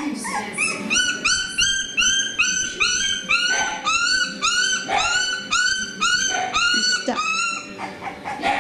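Beagle puppy crying in a steady run of high whimpering yelps, about three a second, each rising and falling in pitch.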